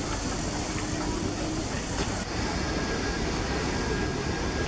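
Steam locomotive at work: a steady rush of steam and exhaust noise. About two seconds in the sound changes abruptly to a second steam locomotive, a class 78 tank engine, with steam hissing.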